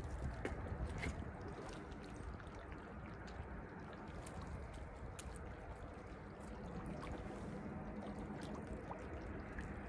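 Small waves lapping and trickling against the rocks of a riverbank, with a few faint clicks. A faint steady hum joins about seven seconds in.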